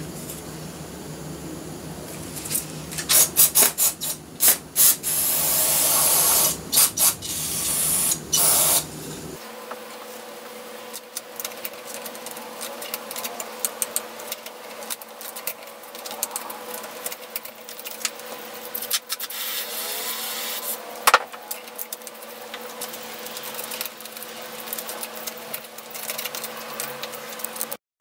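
Loud hissing bursts, short ones and two longer ones, for about the first nine seconds. Then a toothbrush scrubs the oily drive chain and sprockets of a vintage Porter-Cable BB10 belt sander, with light scratching and ticking over a faint steady hum.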